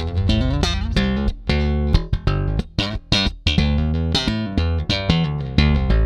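Electric bass played slap style through a standard Fender-style bridge: a fast run of slapped and popped notes with sharp, bright attacks, including a rising slide about half a second in.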